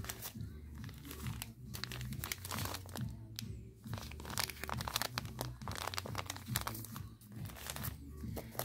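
Plastic bags of concrete pigment powder crinkling and crackling as gloved hands handle them, in a continuous run of irregular crackles.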